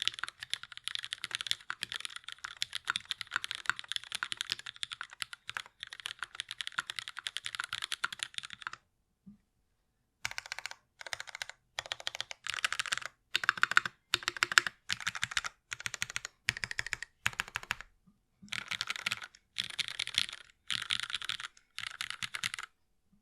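Typing on a KMAC Happy mechanical keyboard with lubed Cherry MX Black linear switches in an aluminium plate and GMK keycaps. The clacking runs fast and continuous for about nine seconds, stops briefly, then comes in about a dozen short bursts with brief pauses between them.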